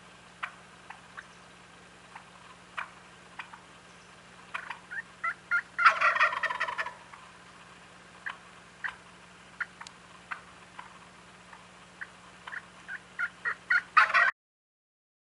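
Wild turkeys calling: short, sharp clucks and yelps, some coming in quick runs that grow louder, with a loud rattling gobble of about a second from the tom some six seconds in. A last run of calls builds near the end and cuts off suddenly.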